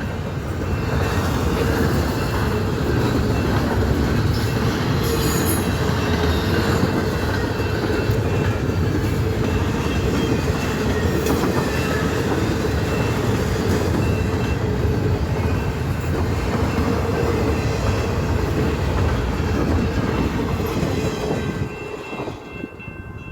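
CN intermodal freight train rolling steadily past a level crossing, its cars' wheels running on the rails. The sound falls away about 21 seconds in.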